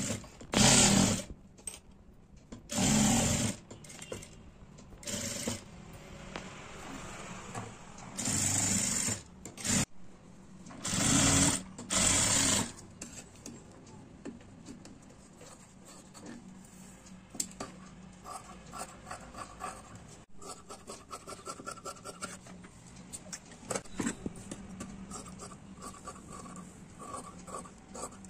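Jack industrial sewing machine stitching in about five short runs during the first half, each starting and stopping abruptly. After that, quieter snips of tailor's scissors and rustling of fabric as the seam is trimmed.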